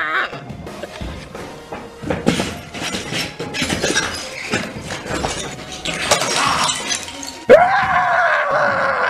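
A man screams, a short yell ending just after the start and a long, loud one from about seven and a half seconds in that slides down in pitch; in between, music with a run of sharp hits and crashes.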